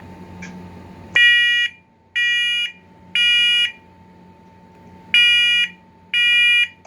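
First Alert SCO500 smoke and carbon monoxide alarm sounding its test: loud, shrill piezo beeps in the temporal-three pattern, three beeps about a second apart, a pause, then three more.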